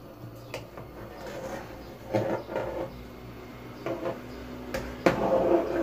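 A ladle stirring soup in a large metal cooking pot, scraping and knocking against the pot in short bursts about two seconds in, about four seconds in and near the end, with a sharp knock about five seconds in.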